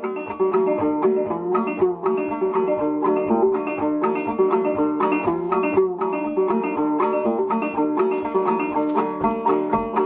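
Solo banjo played unaccompanied: a quick, steady stream of plucked notes, several a second, each ringing briefly over the others.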